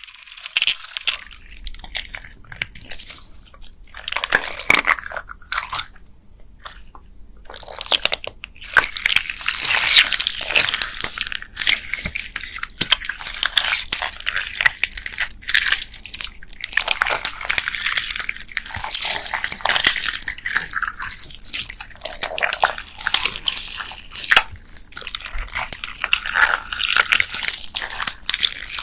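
Hands squeezing and kneading a slime packed with plastic beads: dense crackling clicks and crunches mixed with wet squishes, with a few brief pauses about five to eight seconds in.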